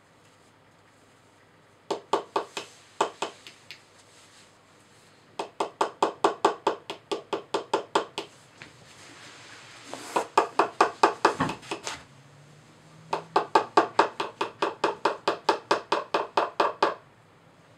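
A small plastic mallet tapping a pick into the hard block of a dinosaur excavation kit, chipping it away. The taps come in four quick runs of about five a second, with short pauses between runs.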